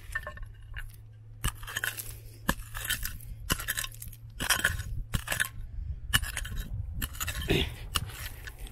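A metal digging tool striking stony ground and quartz rock in irregular blows about once a second, each a sharp clink, with scraping between them.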